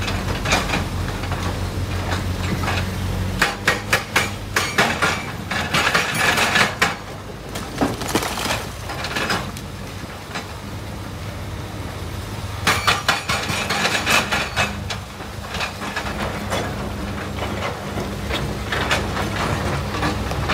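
Komatsu PC300 excavator's diesel engine running steadily while andesite rock is tipped into a steel dump truck bed: bursts of clattering, banging stone impacts a few seconds in, again around halfway, and briefly near the end.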